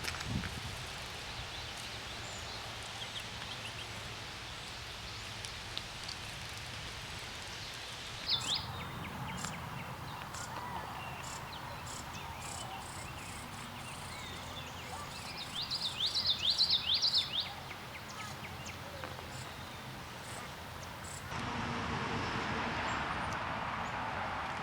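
Bird calls over steady outdoor background noise: a short call about eight seconds in, then a quick series of sharp descending chirps in the middle, the loudest part. The background changes abruptly twice, as between spliced recordings.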